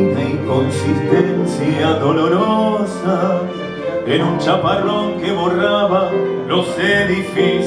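Male vocalist singing a song with a small live ensemble of double bass, violins and piano.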